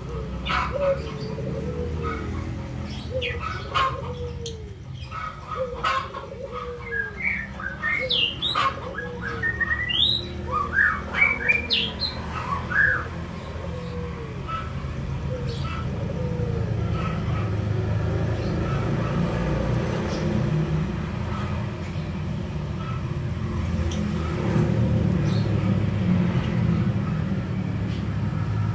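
Birds calling: a run of short arched calls repeating under a second apart, with a cluster of higher quick chirps in the middle, over a steady low rumble that grows a little louder in the second half.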